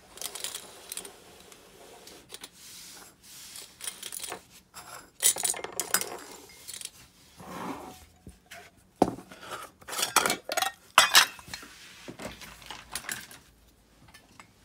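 Small metal parts of a disassembled Abu Garcia Ambassadeur 5500 DA baitcasting reel clinking and rattling against each other as they are handled during cleaning, in irregular taps and clatters.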